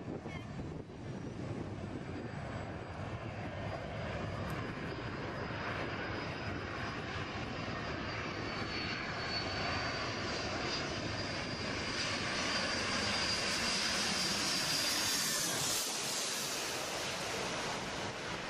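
Airplane engines running with a steady rushing noise and a thin high whine, growing louder over the second half before easing off slightly near the end.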